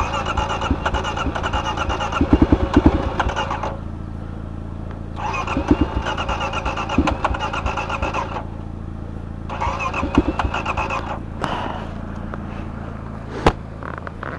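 Starter motor cranking an engine three times, for about three seconds, three seconds and a second and a half, without it catching: the engine is flooded, which the driver agrees with. A steady low hum runs underneath, and a sharp click sounds near the end.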